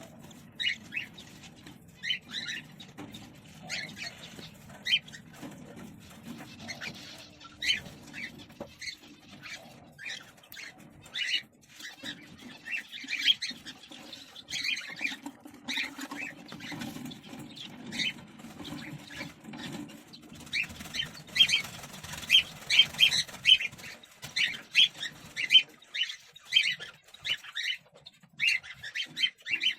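Cockatiels in a nest box giving short, repeated chirps that come faster and louder about two-thirds of the way through, over a low rumble that stops near the end.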